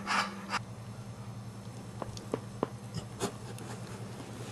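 American Staffordshire Terrier in labour, whelping, giving one heavy panting breath at the start. After that comes a faint steady low hum with a few small clicks.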